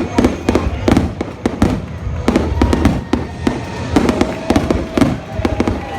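Fireworks going off in rapid succession: many sharp bangs and crackles, several each second, with faint steady tones running under them.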